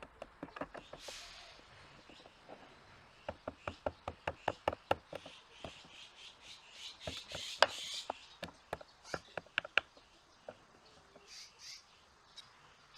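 Light wooden taps and knocks of woodworking: a quick run of them about three seconds in, more with some scraping past the middle, and one sharper, louder knock near eight seconds.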